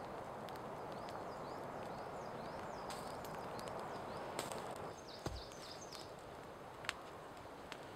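Small birds calling with short, repeated chirps over a steady rushing background. About five seconds in the background drops, a dull thump comes as a log is set down by the campfire, and a couple of sharp crackles follow from the fire.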